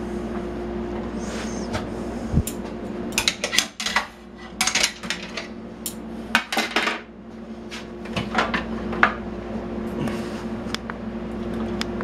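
Metal kitchen tongs clinking and a Black & Decker toaster oven's door and rack clanking as a roasted pepper is lifted out and the oven is shut. It is a scattered series of sharp clinks and clanks over a steady hum.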